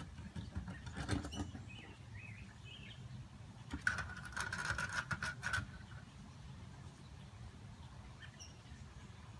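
Faint chirps of small birds over rustling and low handling noise, with short chirps about two seconds in and a longer buzzy, clicking sound from about four to five and a half seconds in.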